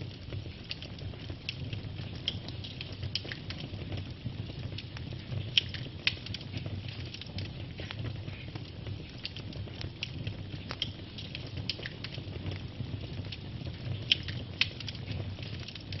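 Wood logs burning and crackling: a steady low rumble of flame with frequent sharp pops, two louder pairs of pops about six seconds in and near the end.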